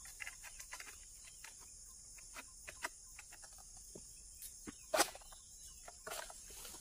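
Light scattered clicks and rustles of a long egrek harvesting pole being worked up into an oil palm's fronds, with a sharper knock about five seconds in, over a steady high hiss.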